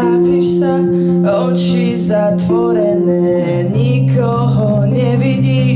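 A woman singing in Slovak to her own electric guitar, letting chords ring under the melody; the chord changes to a lower one a little past halfway.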